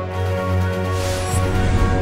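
Background music with a strong bass and a brief rush of hiss about a second in.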